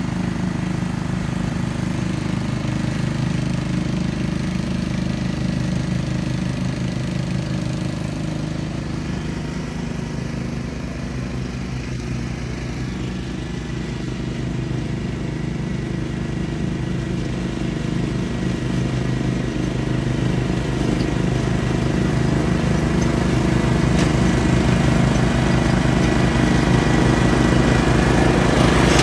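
Simplicity Coronet rear-engine riding mower running steadily while mowing, its engine note growing louder in the last third as it comes closer.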